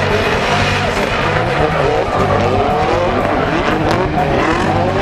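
Two drift cars sliding in tandem, their engines revving hard at high rpm and the pitch swinging up and down as the throttle is worked, over continuous tyre squeal and skidding.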